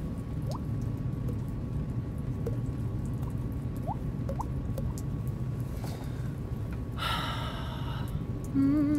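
Mouth-made water-drop sounds: a handful of short, rising plinks a second or two apart, made with fingers and lips close to a phone microphone over a steady low rumble. A short breathy burst about seven seconds in, and a hummed tone starts near the end.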